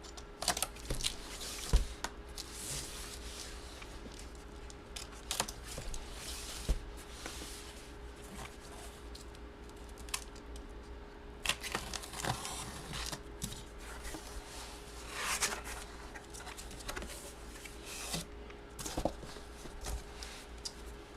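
Handling and opening of cardboard and plastic packaging: scattered clicks, short tearing and crinkling rustles, over a faint steady hum.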